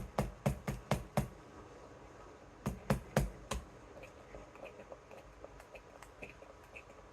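A quick run of light knocks, about four a second, then three more a little later, followed by faint scattered ticks.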